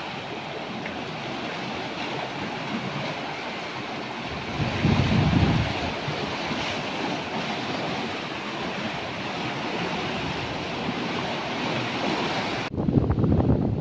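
Small waves washing over and around rocks on a rocky shore: a steady surf hiss with a stronger surge about five seconds in. Near the end the sound changes abruptly to wind buffeting the microphone.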